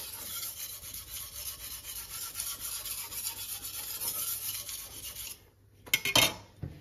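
Steel kitchen knife blade scraped back and forth over a wet sharpening whetstone in quick, even strokes, stopping a little after five seconds in. Then a few sharp knocks as the stone is moved on the counter.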